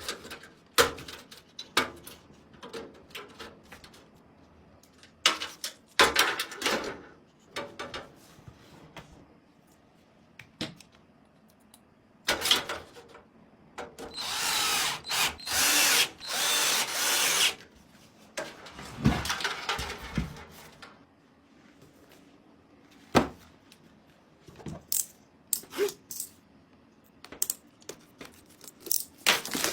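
Small power screwdriver or drill running in three short bursts, as when driving screws during computer assembly. Around the bursts are scattered clicks and knocks of hardware being handled.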